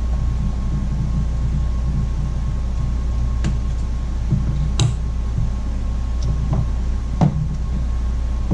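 Steady low hum with a faint high whine underneath, broken by a few light clicks and taps of small parts being handled, about four in all.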